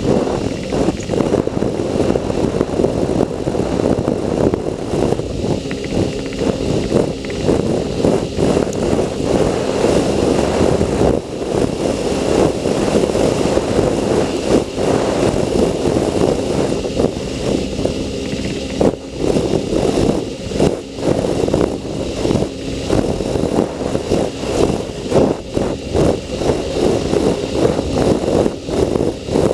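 Sea-Doo personal watercraft's engine running under way, with water rushing past the hull and a constant rushing noise that flickers quickly in level.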